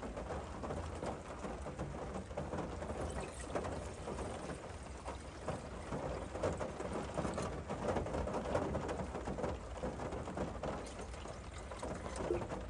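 Water glugging and splashing as it is poured from an upturned plastic bottle into a small metal camping cook pot, steadily throughout.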